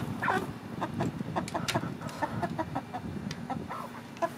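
Golden Comet hens clucking in short, scattered calls, mixed with light clicks and rustles.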